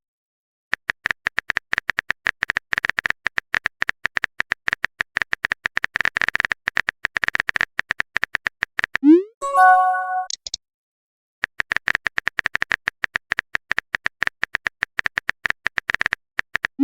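Rapid clicks of a phone keyboard typing sound effect. About nine seconds in the typing breaks for a short rising swoop and a brief chime, a message-sent sound, and then the typing clicks resume.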